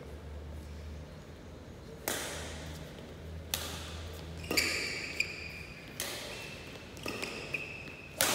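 Badminton rally: rackets striking a shuttlecock about six times, starting about two seconds in, each hit sharp and echoing in the hall. Short high squeaks, typical of shoes on the court mat, follow several of the hits.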